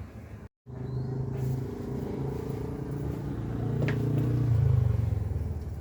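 A motor vehicle engine running with a steady low hum. It grows louder about four seconds in, then eases off, with a single sharp knock shortly before it peaks.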